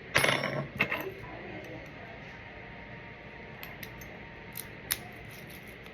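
Small metal lock parts clicking and clinking as a lock cylinder is handled during a rekey, with the pins out: a quick cluster of clinks with a brief metallic ring at the start, then a few scattered light clicks.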